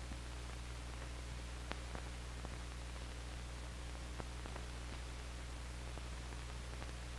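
Steady hiss and low electrical hum of an old film soundtrack in a gap in the narration, with a few faint crackling clicks.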